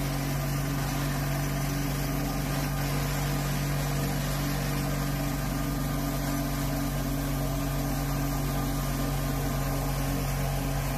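Mini excavator (backhoe) running steadily under load with a steady pitched hum, its hydraulics driving a Kusakarugon brush-and-grass mower attachment that is shredding tangled vines and weeds.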